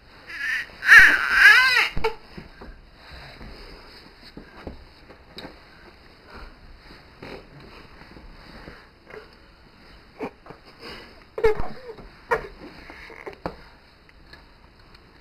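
Baby squealing and giggling while being tickled: a loud burst of high squealing laughter in the first two seconds, then a quieter stretch, then a few short giggles from about ten seconds in.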